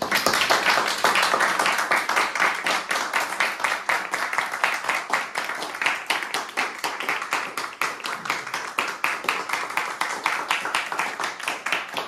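A small audience applauding: many hands clapping, a dense, steady patter that breaks out suddenly and keeps going.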